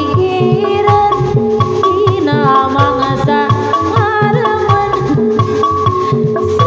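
Live Sundanese sisingaan music. Kendang barrel drums beat a quick, steady rhythm under a wavering melody line.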